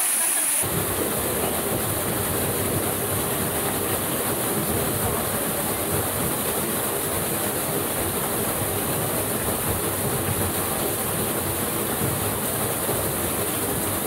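Steady rushing of a waterfall and creek water, a dense, even noise with a low rumble in it, starting abruptly about half a second in.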